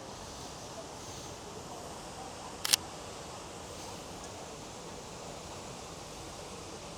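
Steady outdoor ambient noise, with one sharp double click about two and a half seconds in.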